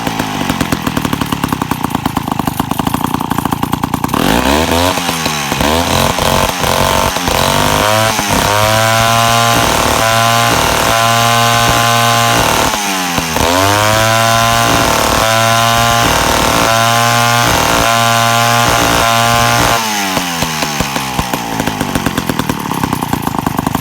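55-year-old Clinton D15 two-stroke chainsaw running on its first run: it idles unevenly, is revved up and held at high speed twice with a brief dip between, then drops back to idle near the end.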